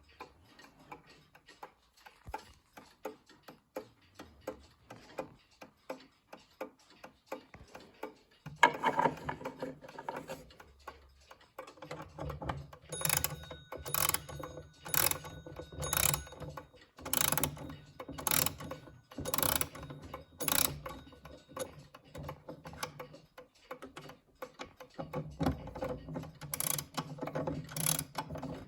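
Junghans gothic steeple alarm clock from about 1900 ticking softly. About eight seconds in there is a knock, then its mechanism clicks loudly like a ratchet roughly once a second, easing back to lighter ticking near the end.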